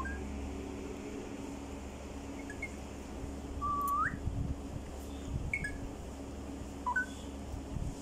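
Alexandrine parakeets giving a few short, high whistled chirps, with one longer whistle about halfway through that holds level and then slides sharply upward.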